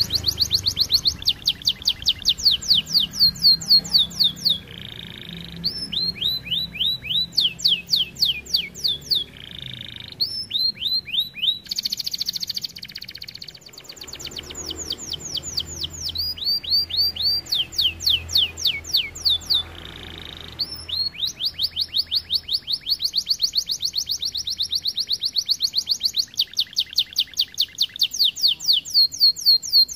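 Domestic canary, a red-factor variant, singing in long fast trills: rolls of quickly repeated, falling high notes, broken every few seconds by short buzzy phrases lower in pitch.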